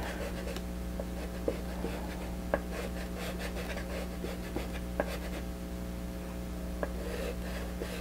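An orange soft pastel stick rubbed over paper in short strokes, a light scratchy sound with a few small sharp ticks where the stick meets the paper, over a steady low hum.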